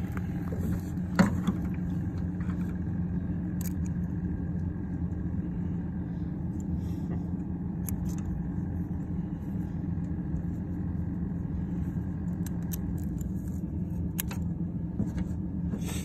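Steady low rumble of an idling vehicle engine, with a few short sharp clicks and snips of kitchen shears cutting through quail legs, the loudest about a second in.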